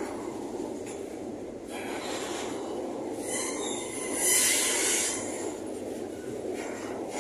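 Freight train's loaded container flatcars rolling past at low speed, with a steady rumble of wheels on rail. A high screech from the wheels rises about three seconds in and is loudest around the middle before fading.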